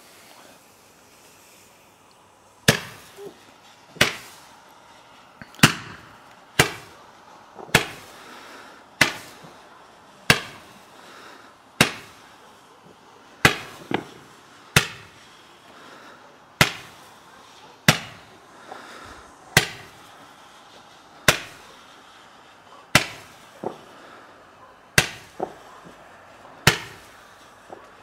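A firework going off in a string of sharp bangs, roughly one every second and a half, starting about three seconds in, with a few smaller pops between them.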